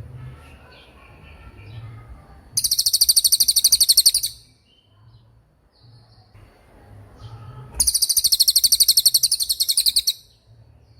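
Canary singing: two long, very rapid, high-pitched trills of about two seconds each, with softer twittering between them.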